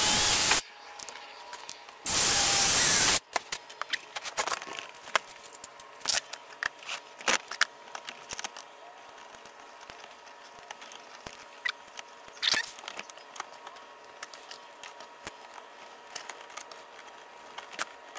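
Cordless drill running at speed, boring holes through a thin ABS plastic splitter: one run stops about half a second in, and a second run of about a second starts around two seconds in. After that come scattered clicks and taps of small metal brackets and screws being handled and fitted.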